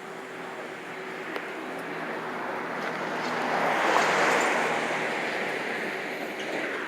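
A vehicle passing by: road noise that swells to a peak about four seconds in, then slowly fades.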